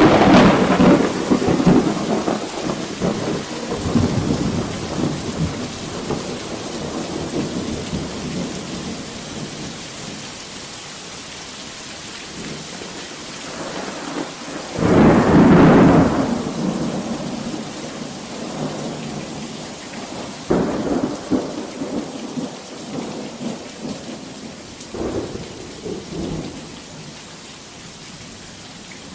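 Steady heavy rain with thunder. A loud peal comes right at the start and rolls away over several seconds, a second loud peal comes about halfway through, and shorter, fainter rumbles come about two-thirds of the way in and again near the end.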